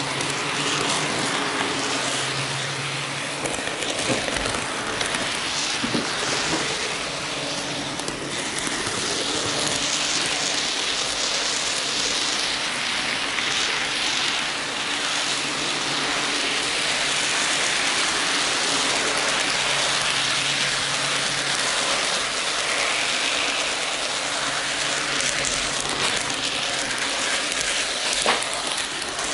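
N-gauge model train running along the track, its small wheels giving a steady dense rattle on the rails over a faint motor hum, heard from a camera riding on the train itself. A few sharp clicks stand out, one near the end.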